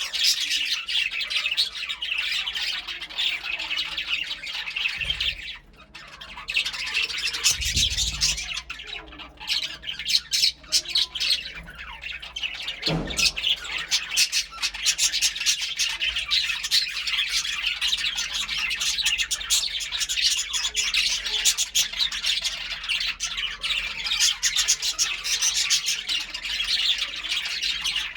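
Budgerigars chattering and chirping in a dense, rapid, continuous warble with squawky calls mixed in, pausing briefly about six seconds in.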